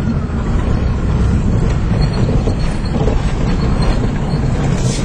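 Car engine held at high revs while the car pushes through a river crossing, a continuous loud rumble with water rushing and splashing around it.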